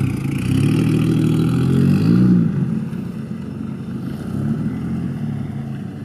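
Straight-piped, single-turbo 2JZ straight-six in a Lexus IS300 running at low revs as the car pulls away, still cold. About two seconds in the engine note briefly rises and falls, then the sound grows quieter as the car drives off.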